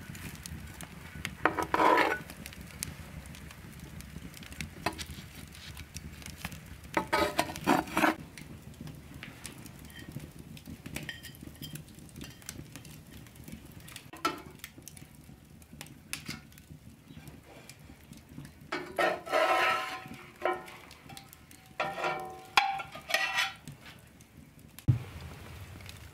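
Flat metal spatula scraping and clanking against an iron frying pan as an omelette is turned, in several short clattering bursts with some metallic ringing, over the steady low noise of the hearth fire.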